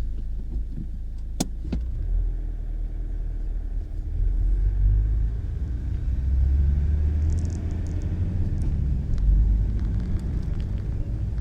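A loud, steady low rumble, with two sharp clicks about a second and a half in.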